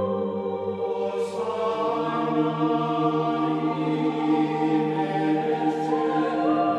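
Slow ambient background music of long held chords that change about a second in and again near the end.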